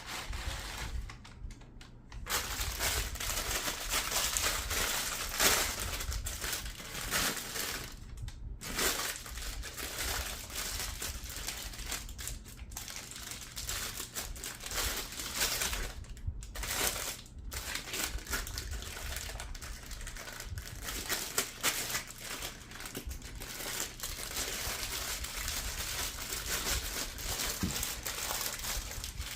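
Dense, continuous crackling and crinkling at the fireplace, with a few short breaks, over a faint steady hum.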